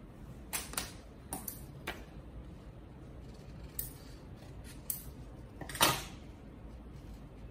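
A series of small clicks and knocks as craft tools and paper are handled and set down on a tabletop, the loudest about six seconds in.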